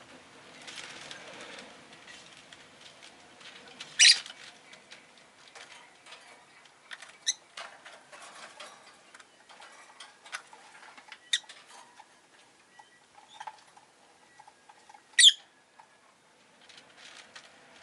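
Rosy-faced lovebird giving two loud, sharp, short calls about four and fifteen seconds in, with a few fainter chirps between them. Soft clicks and rustling throughout.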